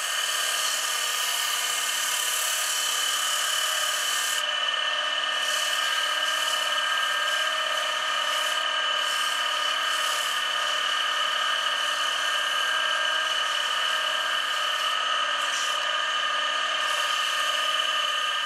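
Wood lathe running with a steady high whine while sandpaper is pressed against a spinning wooden handle blank, giving a hiss that is strongest in the first few seconds and then comes and goes as the paper is moved and changed. This is the sanding of the turned handles on the lathe, working up to 600 grit.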